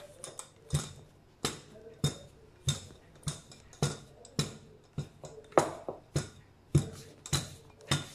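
Rolling pin knocking on a stone counter as it is pushed back and forth over pizza dough: a regular sharp knock at each stroke, roughly every 0.6 s.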